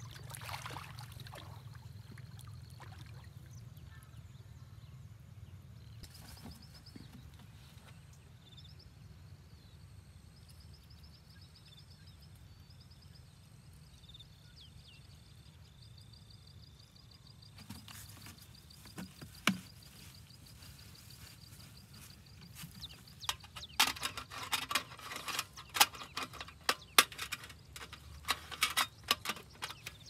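Sharp clicks and knocks of hands working at a small gasoline water pump and a plastic jug while the pump is primed with water, scattered at first and coming thick and loud in the last few seconds. Beneath them is a quiet outdoor background with a faint high trilling through the middle stretch. The pump's engine is not yet running.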